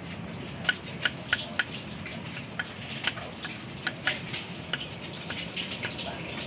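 Kitchen knife chopping vegetables on a round wooden chopping block: a quick run of four sharp knocks about a second in, then more scattered, lighter ones.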